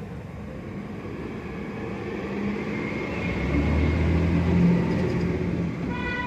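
New York City subway train rumbling on the elevated BMT Jamaica Line tracks. The sound builds steadily to its loudest about two-thirds in, then eases slightly.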